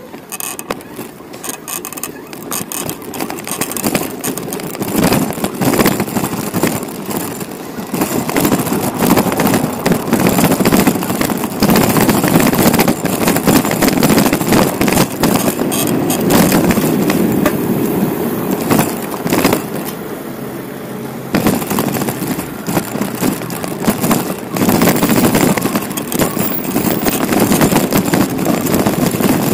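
Rushing wind and road noise on the microphone of a camera riding along on a bicycle, mixed with city traffic. The noise builds over the first ten seconds or so, eases off briefly about twenty seconds in, and then rises again.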